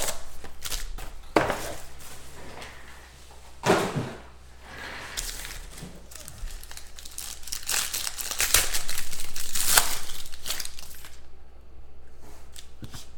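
Gold foil trading-card pack wrapper crinkling and tearing as it is opened by hand, loudest a little past the middle, with two sharp taps near the start.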